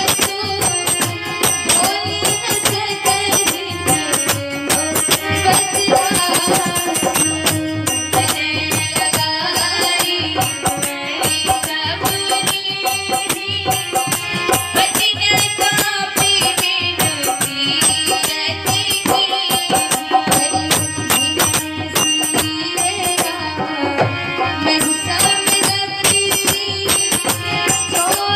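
Devotional bhajan: harmonium playing sustained chords and melody under a woman's singing voice, with a small hand-held rattle-type percussion instrument shaken in a steady, quick rhythm.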